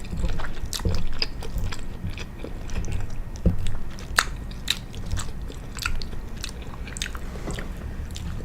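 A person chewing a mouthful of penne pasta and imitation crab, with many short, wet mouth clicks and smacks, several a second.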